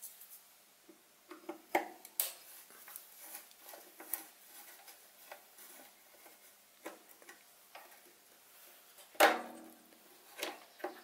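Screwdriver working the small screws that hold a lathe's control circuit board on its mounting posts: scattered light clicks and scrapes of metal on metal. A single louder knock comes about nine seconds in.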